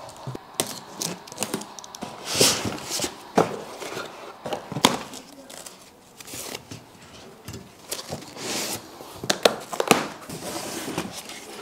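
Unboxing packaging being handled: cardboard box flaps and lids, foam sheeting and bubble wrap rustling and crinkling irregularly, with sharp knocks and scrapes of parts and cardboard between.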